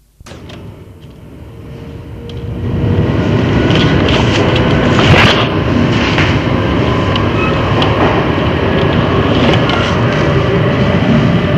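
A Nederlandse Spoorwegen electric multiple-unit train running. The rumble grows louder over the first three seconds and then holds steady, with sharp clicks now and then.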